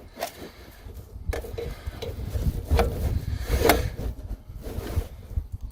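Metal oil-filter wrench clanking and scraping against a spin-on oil filter as it is fitted and worked, with a few short knocks, two of them sharper past the middle, over a low rubbing rumble.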